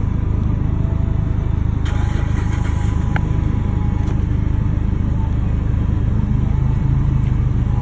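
A steady, low engine rumble runs throughout, with a faint constant tone over it. About two seconds in there is a brief rustle, and a single click follows about a second later.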